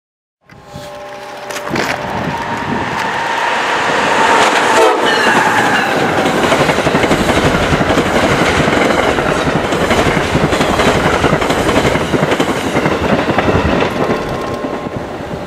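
Amtrak Siemens ACS-64 electric locomotive sounding its horn as it approaches, the chord dropping in pitch as it passes at speed. This is followed by the loud, steady rush and clickety-clack of the passenger cars going by. A horn sounds again briefly near the end.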